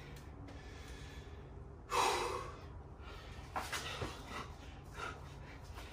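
Hard breathing of a person working through burpees, with one loud forceful exhale about two seconds in. A few light knocks follow as hands and feet meet the floor.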